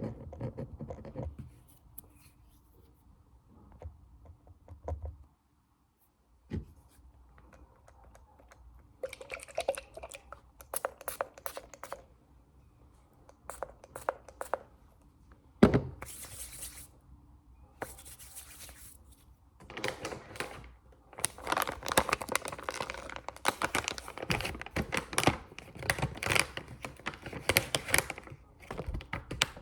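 ASMR tapping and hand sounds close to the microphone: scattered clusters of quick taps and scratches, one sharp knock about halfway, then a dense run of fast tapping over the last third.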